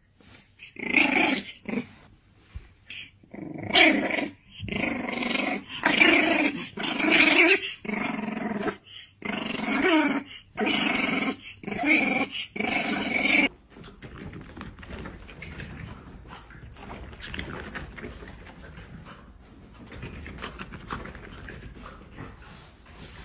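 French bulldog puppy growling in a string of short, pitched bouts, each about half a second to a second long. The growling breaks off abruptly about thirteen and a half seconds in, leaving fainter, indistinct noise.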